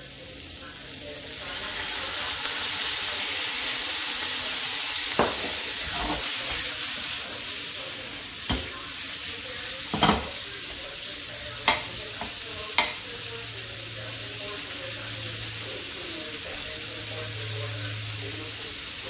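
Sliced onion, celery and carrots sizzling in a frying pan; the sizzle swells about a second and a half in as sake is poured into the hot pan. A few sharp knocks of a utensil against the pan come through it as the vegetables are stirred.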